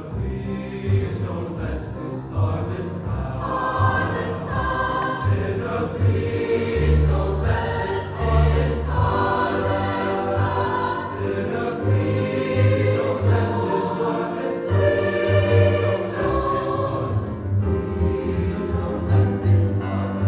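Large mixed high school choir singing a gospel-style choral piece, accompanied by piano, double bass and a small string section, with a pulsing bass line underneath.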